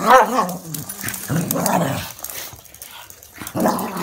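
Small dog growling, with a few short barks.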